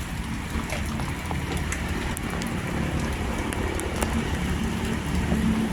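Rain falling steadily, a hiss dotted with the ticks of individual drops striking a surface. A low steady hum runs underneath.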